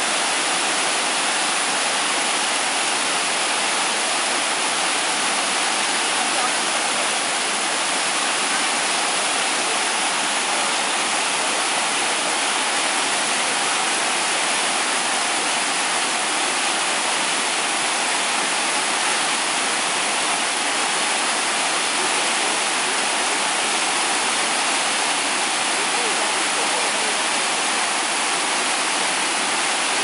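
Waterfall cascading down a sloping rock face: a steady, loud rush of falling water that does not change.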